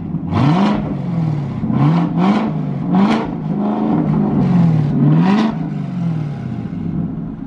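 2018 Camaro ZL1's supercharged 6.2-litre V8 revved again and again through a Corsa Extreme NPP cat-back exhaust. There are about six quick throttle blips, each rising and falling in pitch, and a slightly longer rev about two-thirds of the way in. The speakers call it brutal and nasty.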